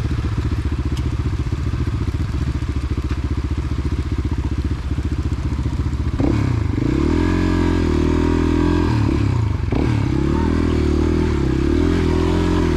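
Motorcycle engine running at a steady low speed, then about six seconds in it is opened up and its pitch rises and falls as the bike pulls along. There is a short break near the tenth second, typical of a gear change.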